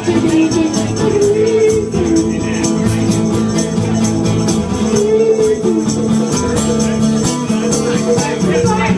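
Upbeat music with a steady beat, shaker or tambourine and a sung or played melody over a bass line.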